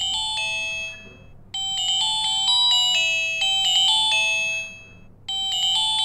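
Lava Gem Power keypad phone's ringtone playing from its built-in speaker: a sweet melody of bright, chime-like notes that pauses briefly and starts over, twice.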